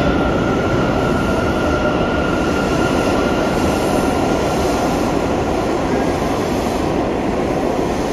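New York City subway train running through the station: a loud, steady rumble of wheels on rail, with a faint high squeal over it for the first several seconds.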